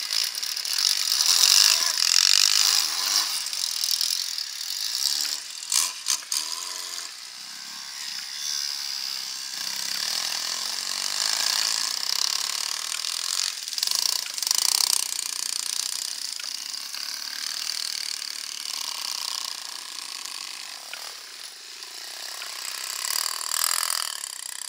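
Dirt bike engines revving as the bikes ride through a snowy enduro course, the sound swelling and fading as they pass, with the pitch rising and falling with the throttle.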